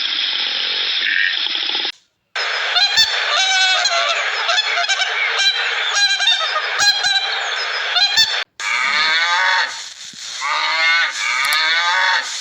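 Loud, repeated animal calls, many overlapping, broken by two brief gaps of silence. In the last part the calls fall in pitch.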